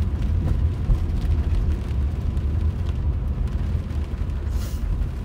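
Steady low road and engine rumble inside a moving car's cabin, with a brief hiss a little before the end.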